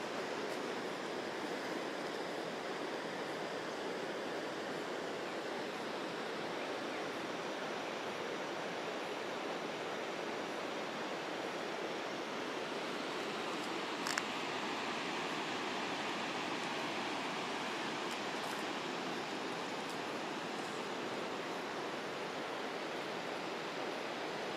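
Steady, even rushing outdoor ambience, with no clear rhythm or changes, and one sharp click a little past halfway.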